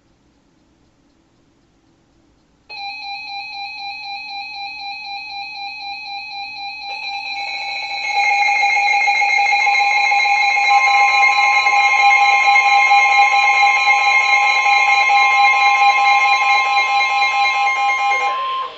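Weather alert radios sounding their alarms for a severe thunderstorm warning. A pulsing electronic alarm tone starts about three seconds in. More alarm tones join around seven and eight seconds, growing louder, and a steady tone near 1 kHz joins about ten seconds in. All of them cut off together near the end.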